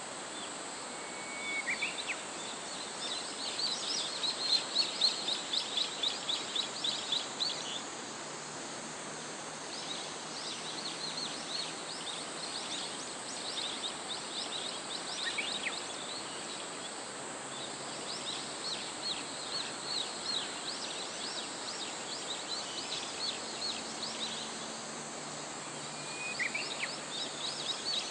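Steady rush of river water, with repeated runs of quick high chirping calls, each run lasting several seconds, about four times.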